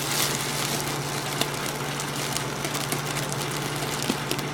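Steady hiss of helium rushing out of a balloon's hole as it is squeezed and inhaled, over a low steady hum.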